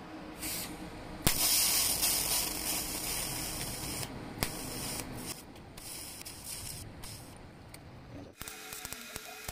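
TIG welding arc hissing and crackling on a rusted steel motorcycle exhaust elbow pipe as filler rod is fed in. The arc strikes about a second in, then cuts out and restarts several times. It stops near the end, leaving a few light clicks.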